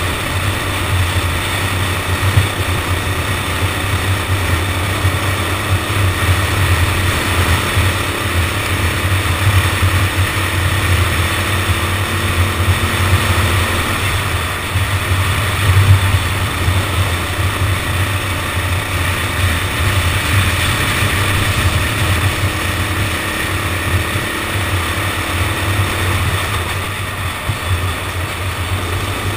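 Go-kart engine running continuously as the kart laps the track, heard from an onboard camera: a steady low drone with a rushing noise over it, and a faint rise and fall in pitch now and then.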